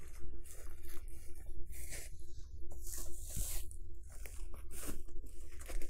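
Footsteps and rustling through dense woodland undergrowth: leaves, stems and twigs brushing and crunching in irregular bursts, several a second.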